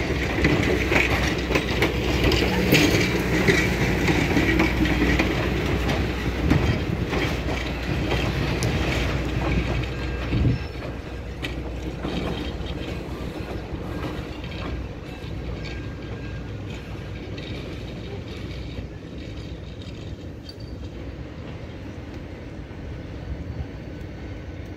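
Passenger railroad cars rolling past on the track, their wheels clicking over the rail joints. About ten seconds in the last car goes by, the sound drops suddenly, and the train fades as it moves away.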